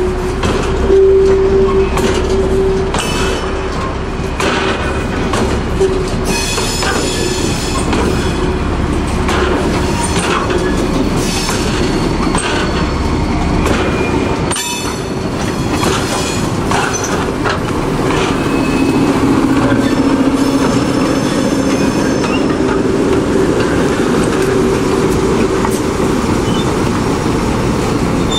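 Class 03 diesel shunter D2112 running as it hauls a train of empty wagons, with wheels clicking over the rail joints and high wheel squeal coming and going.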